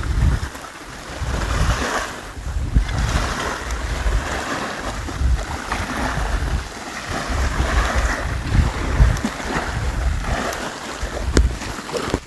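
Surf washing onto a beach in swelling surges, with gusty wind buffeting the microphone in uneven low rumbles.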